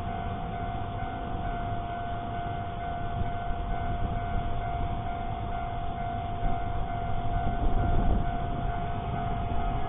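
Railroad level-crossing warning alarm sounding as one steady high tone over a low traffic rumble, recorded through a dashcam microphone. The rumble grows louder about two-thirds of the way through.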